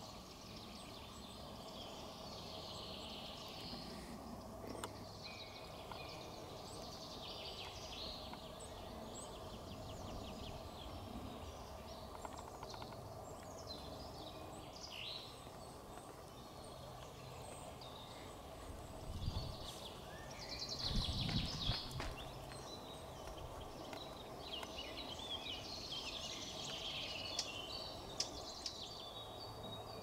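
Wild birds chirping and calling on and off in woodland, over a steady low background hum. A few low bumps come about two-thirds of the way through.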